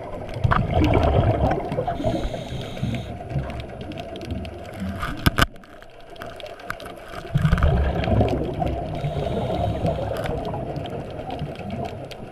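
Scuba diver breathing out through a regulator underwater: two long spells of bubbling rumble several seconds apart, with a couple of sharp clicks about halfway between them.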